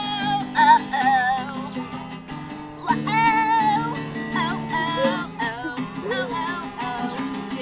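Acoustic guitar strummed in steady chords while a girl sings along, her voice wavering and sliding on long held notes.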